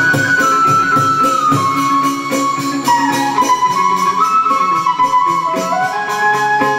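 Vietnamese chầu văn ritual music played live. A moon lute (đàn nguyệt) plucks a fast, even pulse under a melody of held notes that step up and down.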